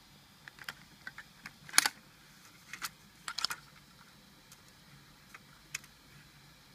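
Irregular small clicks and taps from fingers handling a Polaroid camera body converted for Instax Wide film. The loudest click comes about two seconds in, with a quick cluster of clicks about a second and a half later.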